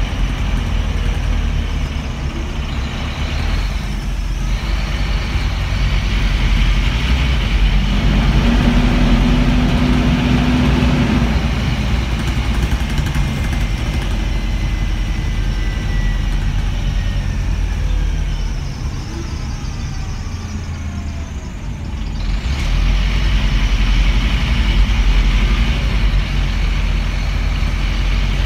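Scania N230UB bus's five-cylinder diesel engine running, heard from inside the passenger saloon as a steady low rumble. A thin whine glides down in pitch through the middle, and the level dips briefly before rising again.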